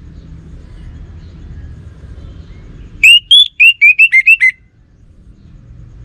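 Orange-headed thrush (anis merah) singing a quick phrase of about nine loud, clear whistled notes about halfway through, the notes coming faster toward the end. A low rumble of background noise fills the rest.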